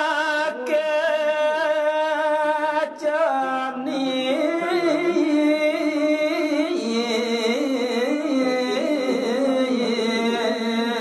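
A solo voice singing a line of Balinese geguritan verse unaccompanied, in long held notes that waver and turn, with a short breath about three seconds in before the melody continues lower.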